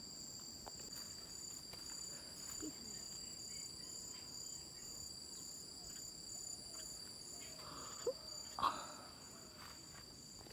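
Faint, steady high-pitched chorus of insects, one note pulsing in an even rhythm. Two brief soft sounds come about eight seconds in.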